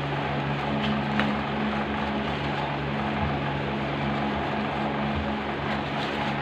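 A steady machine hum with a constant rushing noise that does not change.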